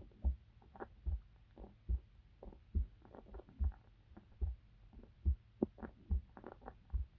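A human heartbeat picked up by a microphone pressed against the body: steady low thumps at about seventy beats a minute. Faint irregular gurgles and crackles from inside the body fall between the beats.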